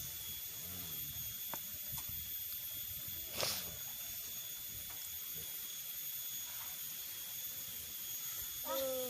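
A person eating spicy noodles, with a steady background hiss. One short, sharp hissing sound comes about three and a half seconds in, and a brief vocal sound comes near the end.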